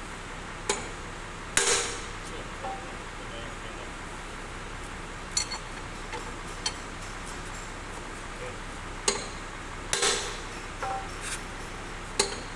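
Irregular metal clanks and knocks of tools and parts during the dismantling of a Mercedes-Benz 1525 bus gearbox, about ten sharp strikes spaced unevenly a second or more apart.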